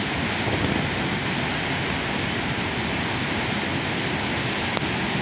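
Tropical-storm wind buffeting the microphone over the heavy surf, one even rush of noise with a fluttering low rumble. A faint click near the end.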